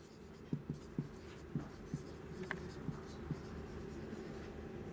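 Marker pen writing on a whiteboard: a quiet string of short strokes and taps as words are written out, fading to a faint steady background near the end.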